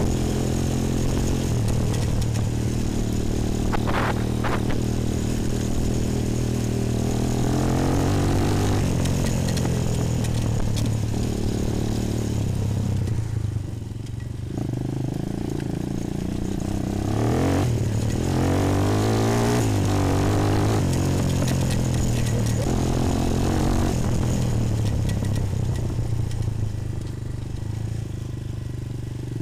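Bashan 250 quad's single-cylinder four-stroke engine running under way, revving up and down with the throttle, eased off briefly about halfway through.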